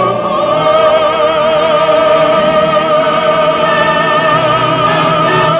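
Operatic singing over a studio orchestra: a long held high final note with wide vibrato closes a love duet, and right at the end the full orchestra comes in with brass.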